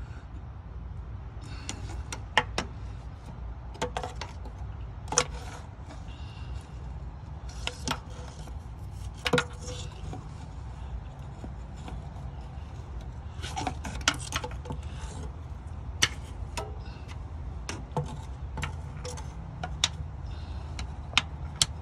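Metal hand tools clinking and tapping irregularly against the engine block while a crankshaft position sensor is worked loose, a dozen or so sharp clinks among lighter rattles, over a steady low hum.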